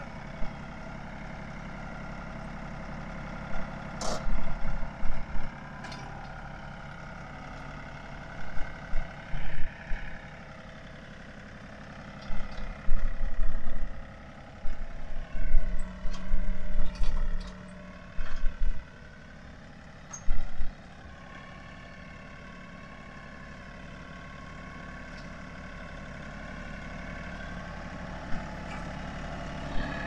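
Kioti compact diesel tractor running steadily as it tows a chicken coop trailer. Loud low thumping rumbles come and go several times, and there is a sharp click about four seconds in.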